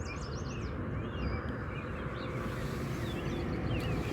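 A steady rushing noise, heaviest in the low end, that cuts off suddenly near the end, with small birds chirping over it.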